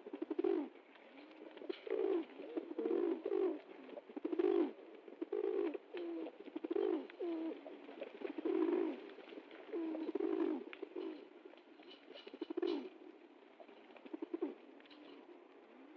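Several pigeons cooing in repeated low, rolling phrases that overlap one another, growing sparser near the end.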